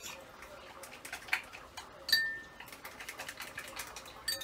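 A spoon stirring a liquid mix in a small ceramic bowl and tapping against its sides: light rapid clicks, with a sharper clink about two seconds in that rings briefly.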